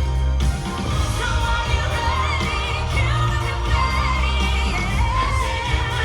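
Fireworks show soundtrack: a pop-style song with a singing voice carrying a wavering melody over a heavy bass.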